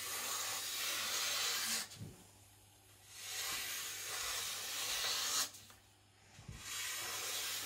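Freshly sharpened Bark River Senegal knife slicing through magazine paper: three long cuts, each about two seconds, with short pauses between. The edge cuts cleanly, the sign of a keen edge.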